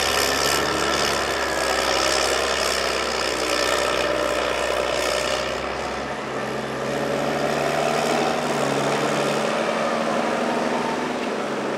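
Case IH Puma 225 CVX tractor's six-cylinder diesel running steadily under load while pulling a six-furrow plough on rubber tracks. The deep low rumble drops away about halfway through.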